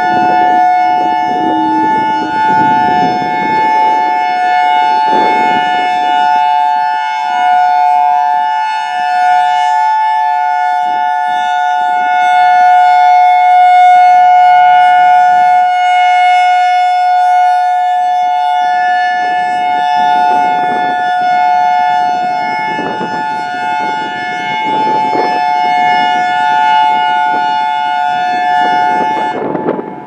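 Federal Signal EOWS 612 rotating electronic siren sounding its steady alert tone. Two pitches are held together as a dual tone, with its A and B sides both sounding. It grows louder as the horns turn toward the listener and cuts off near the end.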